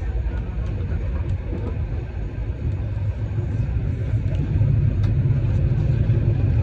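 Motor vehicle running: a steady low rumble of engine and road noise that grows louder about four and a half seconds in.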